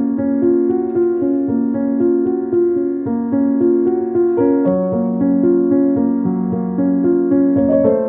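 Background keyboard music: a steady, gently repeating pattern of piano-like notes, with the bass moving lower about halfway through.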